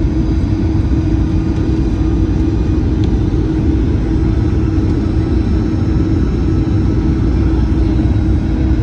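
Cabin noise of a Boeing 737-800 on approach: its CFM56-7B turbofan engines and the airflow over the fuselage make a steady low rumble with a constant hum.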